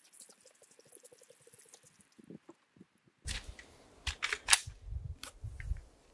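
Sharp metallic clicks and knocks from a mud-fouled AK-type rifle being handled, starting about three seconds in with the loudest about a second later. They come as the safety lever, jammed with mud, is being worked.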